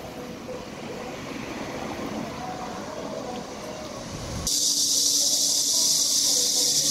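Rumbling background noise, then an abrupt switch about four and a half seconds in to a louder, steady high-pitched hiss.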